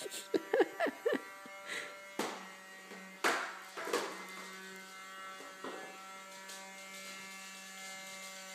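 Small vacuum cleaner's motor running with a steady, even buzz. A few sharp knocks and clatters break in about two, three and four seconds in.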